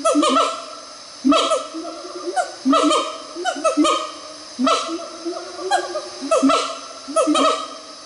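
Siamang calling, its voice boosted by its throat sac. A run of loud calls comes about once a second, each one sliding up and down in pitch.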